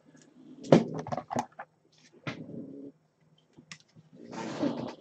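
Sharp clicks and taps of trading cards and plastic card holders being handled, the loudest a click about three-quarters of a second in. Near the end a dog snorts.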